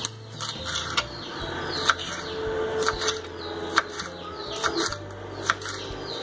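Kitchen knife slicing a green bell pepper on a wooden cutting board, the blade striking the board with a sharp tap about once a second.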